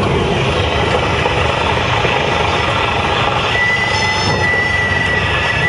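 Cessna 172S's four-cylinder Lycoming engine and airflow, a steady loud drone heard from inside the cabin. A steady high-pitched tone joins about three and a half seconds in.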